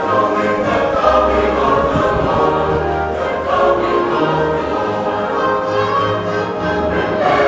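Mixed church choir of men's and women's voices singing a carol in parts, with sustained notes that move together every second or so.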